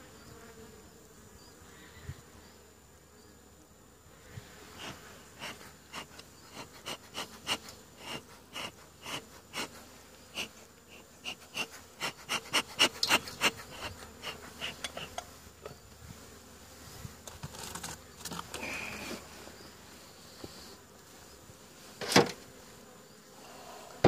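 Bee smoker's bellows squeezed in a long run of short puffs, about two a second, over honeybees buzzing around the open hive. Near the end comes one sharp knock on the wooden hive.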